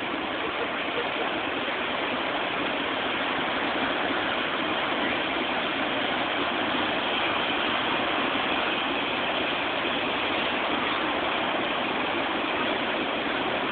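Ocean surf breaking and washing up the shore: a steady rushing noise with no distinct crashes.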